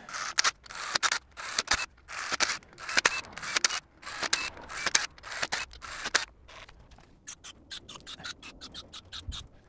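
Cordless drill running in short bursts, spinning a notched head stud used as a long thread chaser down the head-bolt holes of a cast-iron engine block. Near the end, a quick run of short hisses from an aerosol spray can, about four a second.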